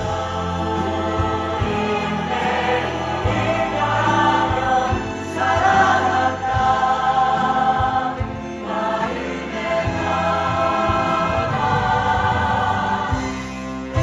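Several voices singing together in chorus over instrumental accompaniment, holding long notes that change every second or two.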